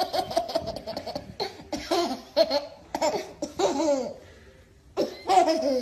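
A baby laughing hard: first a quick run of rhythmic laugh pulses, then a string of separate laughing bursts that fall in pitch. There is a short lull about four seconds in, and one more laugh comes near the end.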